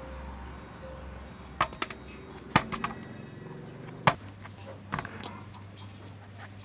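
Sponge gourd being cut into chunks with a knife, held in the hand over a metal bowl: about four sharp clicks and knocks as the knife snaps through the flesh and the pieces drop into the bowl.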